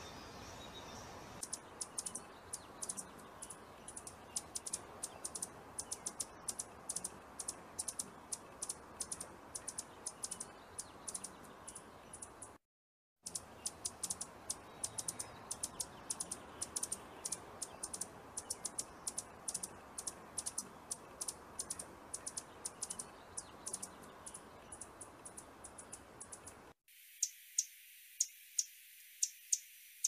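Hummingbird chip calls: a long run of short, very high ticks, several a second and unevenly spaced, over a faint hiss. Near the end the ticks come in a quicker, more even series.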